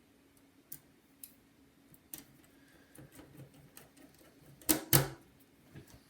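Scattered small clicks and ticks of a precision screwdriver and small screws as a heatsink is screwed back onto a MacBook logic board, with two sharper knocks close together about three quarters of the way through.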